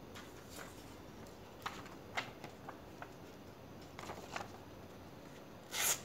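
Faint handling of a pocketknife and a sheet of paper: a few soft scattered clicks and rustles, then a brief louder rustle of paper near the end as the blade is set to the sheet.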